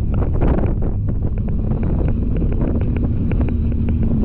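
Wind buffeting the microphone over a running off-road vehicle. A run of quick light rattles starts about a second in, and a steady engine note joins about halfway through.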